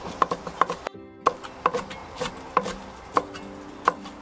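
Chef's knife chopping red chilies on a wooden cutting board: uneven sharp knocks of the blade against the board, roughly three a second.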